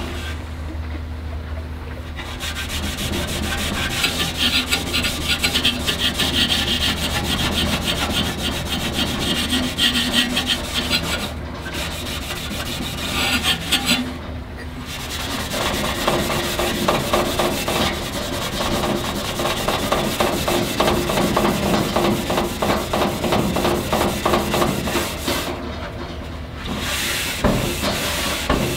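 Red Scotch-Brite abrasive hand pad scrubbing back and forth along the lip of a stainless steel grill firebox, a fast, continuous rasping rub, brightening the stainless. The scrubbing stops briefly a few times, about 11, 14 and 26 seconds in.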